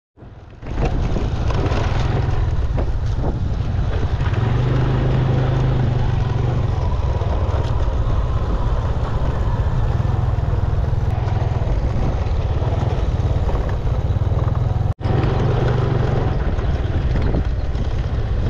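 Steady road-traffic noise from a main road, a constant low rumble with no pauses, dropping out for an instant about fifteen seconds in.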